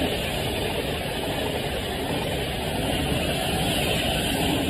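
Thameslink Class 700 electric multiple unit moving past along the track, with a steady rumble of wheels on the rails.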